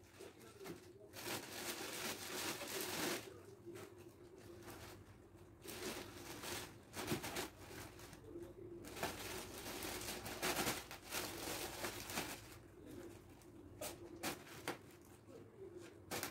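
Plastic wrapping of a toilet-paper multipack rustling and crinkling in several bursts, with soft knocks of paper rolls being handled and stacked, over a faint steady hum.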